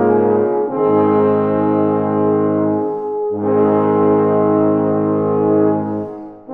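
Euphonium quintet playing loud, long-held brass chords. Each chord is cut off with a short gap before the next, about half a second in, near the middle, and near the end.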